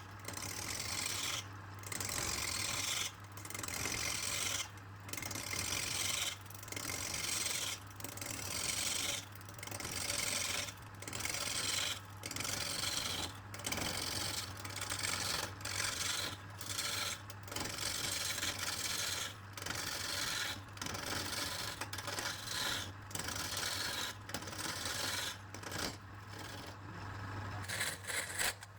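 Rhythmic rasping or scraping strokes on wood, about one a second with brief gaps between them, over a steady low hum.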